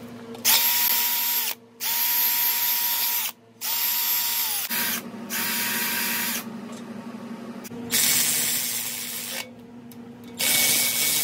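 Hand-held power tool with a socket extension running bolts in and out of the main-cap bolt holes of a Toyota 2JZ engine block, cleaning the threads. It goes in about six short runs, each spinning up to a steady whine and winding down.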